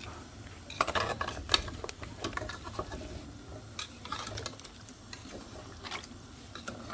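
A utensil stirring oxtail in a pot, with scrapes and clinks against the pot in several short bouts.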